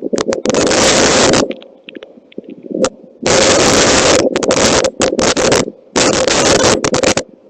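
Several loud bursts of harsh noise that switch on and off abruptly, the longest lasting about a second, over a steady low hum.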